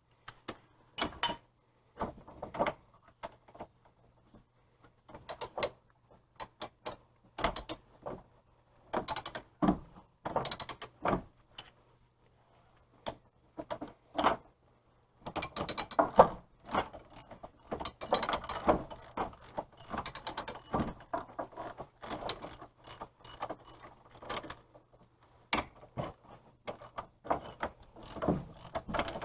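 Hand ratchet wrench clicking in short, irregular bursts as bolts on a car's wheel hub assembly are turned. The strokes are sparse at first and come faster and nearly continuously from about halfway.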